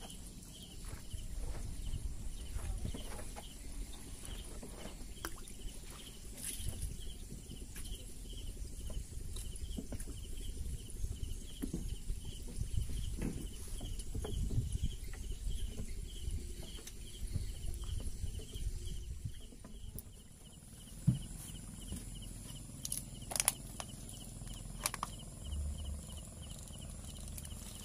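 Night chorus of insects: a chirp repeating evenly about three times a second over a steady high-pitched hum, with a few sharp knocks in the last seven seconds.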